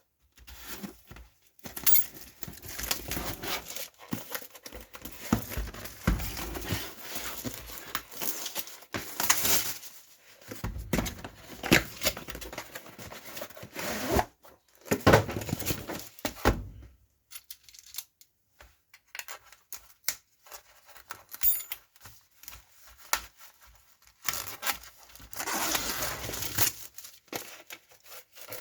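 Packaging of a boxed ratchet set being opened by hand, with irregular tearing, crinkling rustles and sharp clicks. There is a quieter stretch of scattered clicks past the middle before the rustling picks up again.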